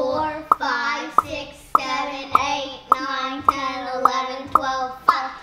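Children and a woman counting aloud together in a sing-song chant, each number marked by a sharp pop, a little under two a second.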